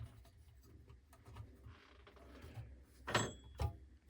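Handling noises with the grinder not yet running: a few soft knocks, then about three seconds in a sharp metallic clink with a brief high ring, followed by a second knock.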